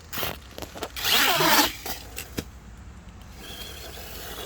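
Electric motor of a toy RC car whining in short bursts as it is driven, loudest in a burst about a second in, with a few clicks and knocks before it and a steadier high whine near the end.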